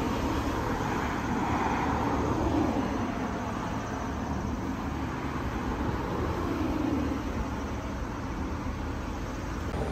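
Steady city street traffic noise, a low road rumble that swells twice as vehicles go by.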